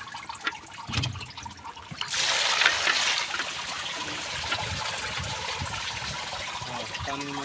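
Water poured over a bamboo basket of small fish, splashing and trickling down through the fish and the weave as the catch is rinsed. The pour starts about two seconds in, loudest for the first second, then settles into a steady trickle.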